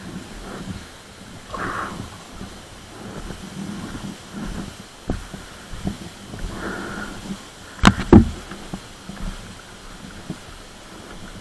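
Steady rushing hiss of a waterfall, with scattered small clicks and two sharp knocks close together about eight seconds in.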